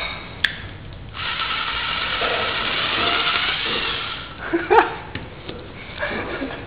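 Power drill spinning an ear of corn on its bit: a short trigger blip, then running steadily for about three seconds before stopping, with a brief voice cry shortly after it stops.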